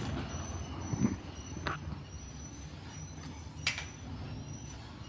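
Steady low background rumble with a faint high tone that comes and goes, and a few soft taps.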